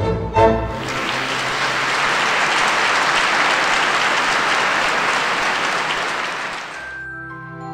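An orchestral waltz sounds its last chords, then an audience applauds steadily for about six seconds. The applause cuts off abruptly near the end and soft, calm music begins.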